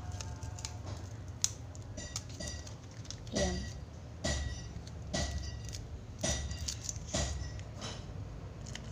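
Hands working a plastic slime tub and a strip of clear Scotch tape: light clicks, then about five knocks and crackles roughly a second apart.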